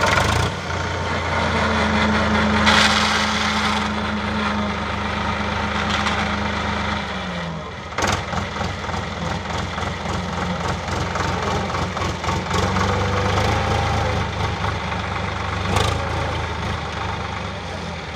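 HMT 5022 tractor's diesel engine running steadily under load as the tractor strains to drive its rear wheel out of a mud pit, with a few sharp clunks.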